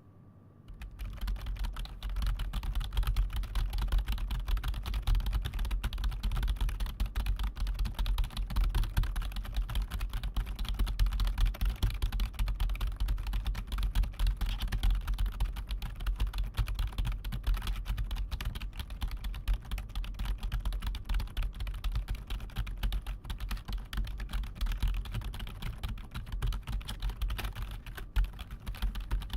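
Fast, continuous typing on a computer keyboard: a dense clatter of key clicks that starts about a second in, with a low rumble underneath.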